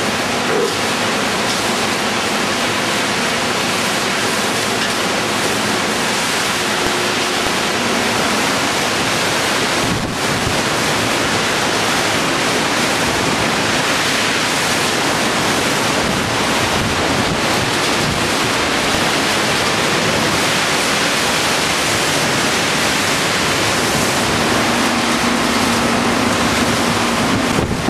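Hurricane wind and heavy rain making a loud, steady rushing noise, with no let-up.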